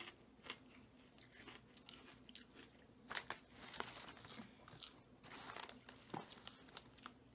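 Lay's potato chips being chewed: faint, irregular crunching, with a few louder crunches about three and four seconds in.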